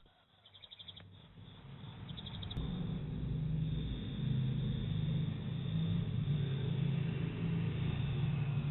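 A low, steady rumble that swells over the first three seconds and then holds, with a few short bird chirps near the start.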